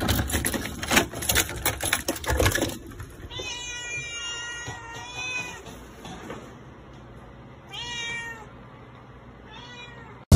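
A bunch of keys jangling and clicking in a door lock, then a cat meowing several times in separate calls.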